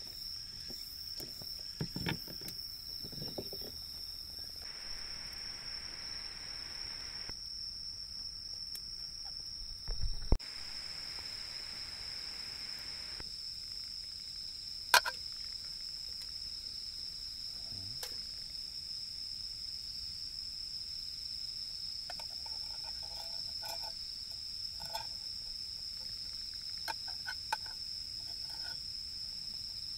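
Steady high-pitched chorus of night insects, with a few sharp knocks and clicks over it, the loudest about a third of the way in and about halfway through.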